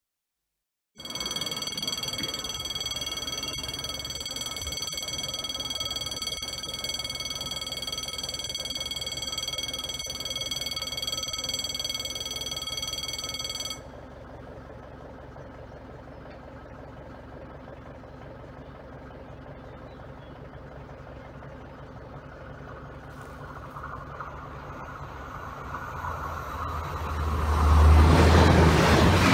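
A level crossing's warning bell ringing steadily, a continuous ring of several tones that breaks off abruptly about 14 s in. Then a TER regional train approaches, growing steadily louder until it passes near the end.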